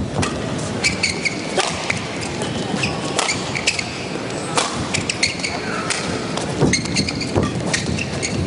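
Badminton doubles rally: a string of sharp racket hits on the shuttlecock, about one every half second to second, with short high shoe squeaks on the court floor and a steady crowd hum from the arena underneath.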